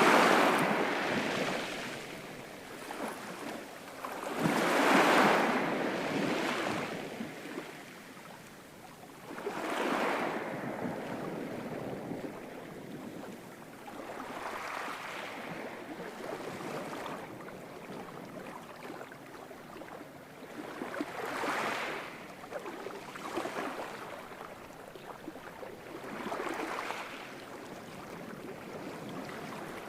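Ocean waves breaking and washing up the shore: a steady hiss of surf that swells into a surge and falls away every four to six seconds, the strongest surges near the start and about five seconds in.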